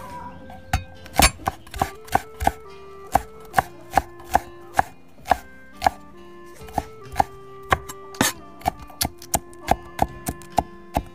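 Cleaver chopping garlic cloves on a wooden chopping board: sharp knocks at an uneven pace of about two or three a second, with short pauses.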